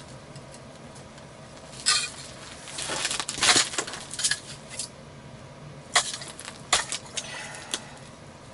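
Ice chisel (pick) striking and chipping the thin skin of ice that refroze over an ice-fishing hole: sharp clinking, crunching blows at an uneven pace, several close together about three seconds in, then single strikes spaced about a second apart.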